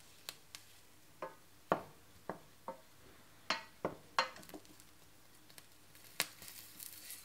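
A wooden spoon stirring garlic cloves around a hot stainless steel pan with mustard seeds in a little oil. About a dozen sharp, irregular clicks and pops, some with a brief ring, spread over several seconds.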